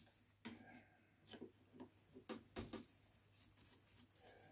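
Near silence broken by a few faint clicks and light knocks of a screwdriver and small carburetor parts being handled, with a light patter of ticks near the end.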